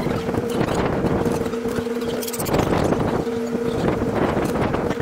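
Steel carport frame tubes knocking and clattering as they are handled, in a rapid run of knocks, over a steady low hum that breaks off a few times, with wind on the microphone.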